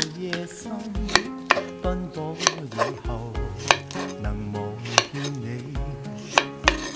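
Kitchen knife cutting through fresh spring bamboo shoots on a wooden cutting board: about a dozen crisp, irregular chops, each with a dull knock from the board.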